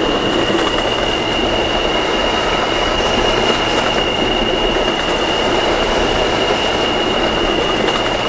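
New York City subway train running between stations, heard from inside the car: a steady rumble of wheels on rail with a high-pitched whine held over it throughout.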